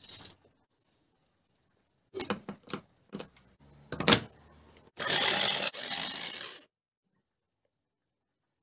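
Hard plastic clicks as the lid and motor head of an electric mini chopper are fitted onto its bowl, then the chopper runs for about a second and a half, briefly cut once, pureeing chunks of red pepper.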